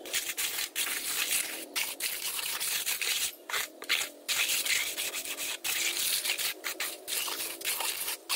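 Steel trowel scraping and smoothing the top of damp sand-cement mix in a wooden batako mold: a gritty rasping in uneven back-and-forth strokes, broken by short pauses.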